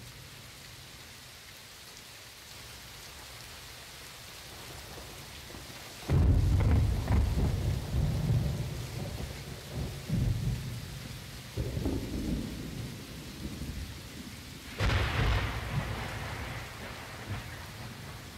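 Thunderstorm sounds in a dark ambient track: a steady rain hiss, then a sudden loud thunderclap about six seconds in that rolls away, a second rumble a few seconds later, and a sharper crack near the end.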